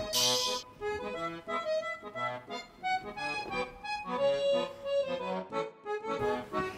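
Background music: a light melody of held notes, with a brief hiss right at the start.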